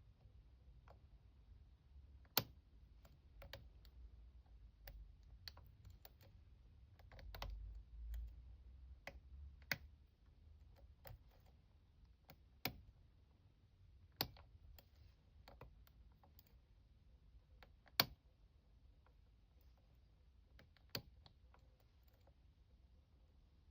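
Lock picking: a half-diamond pick working the pins inside a challenge lock, giving faint, sharp, irregular clicks every second or so, a few louder than the rest. Low handling rumbles sit under the clicks about a third of the way in.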